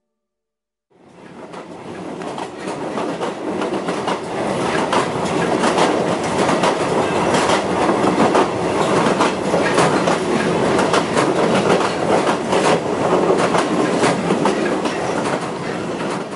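Train running on the rails, with a dense, continuous clatter of wheels. It fades in about a second in, holds steady and eases off near the end.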